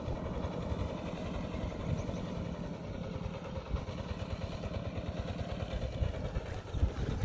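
Engine of a homemade ratoon-rice harvester, built from a two-wheel hand tiller, running steadily with a fast low chug as the machine works its way through the paddy.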